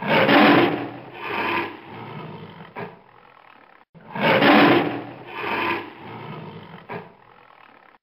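Tiger growling, the same growl heard twice about four seconds apart: each time a loud growl, a second weaker one, then a lower trailing growl ending in a brief sharp sound.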